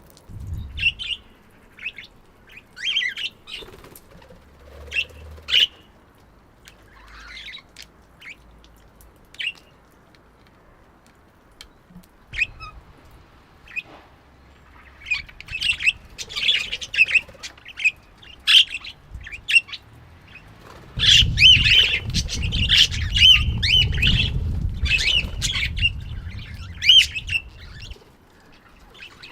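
Budgerigars chirping and chattering in short, scattered calls, sparse at first and busier in the second half. A low rumble runs under the calls for several seconds near the end.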